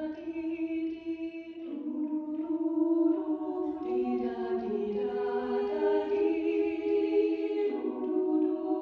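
Female choir singing a cappella: slow, held chords that move to a new chord every couple of seconds.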